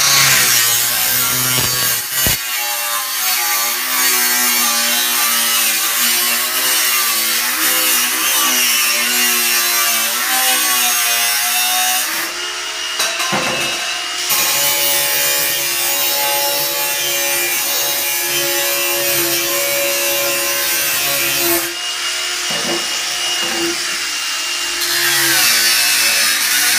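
Hilti AG 125 A22 22-volt cordless angle grinder cutting through a flue, its motor whine wavering in pitch as the disc bites and eases. It briefly lets up about twelve and again about twenty-two seconds in.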